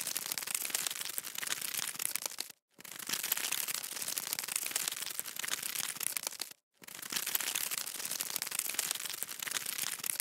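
Dry crackling, crinkling rustle laid over the picture as the sound of a centipede crawling over soil, played as three stretches of about four seconds with short silent breaks between them.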